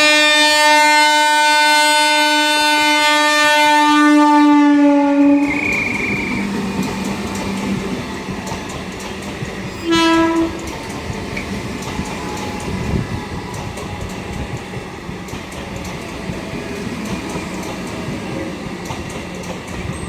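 Train horn sounding one long, loud blast of about five seconds, its pitch sagging slightly as it ends. Then a train passes close by, wheels clattering over rail joints under a steady hum, with a second short horn blast about ten seconds in.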